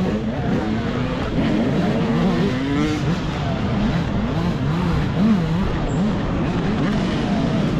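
Dirt bikes racing off-road: a motor's pitch rises and falls over and over with the throttle, over a steady rush of riding noise.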